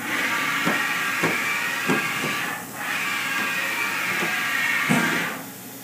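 Haas VF-6 vertical machining center's table traversing on its ways, with a steady hiss and whine from the servo drives and the sliding steel way covers. There are several light knocks. The sound dips briefly about two and a half seconds in and falls away near the end.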